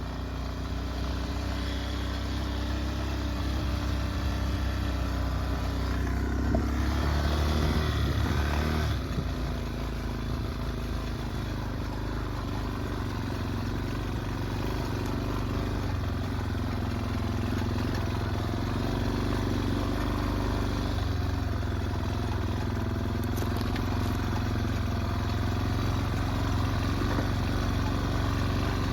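Yamaha Warrior 350 ATV's single-cylinder four-stroke engine running under way, louder and revving harder from about six to nine seconds in, then running steadily.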